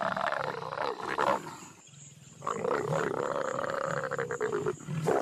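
Leopards growling while mating: a long rasping growl, rising then falling in pitch, that breaks off about a second in, a second long growl from about two and a half seconds in, and a short snarl at the very end.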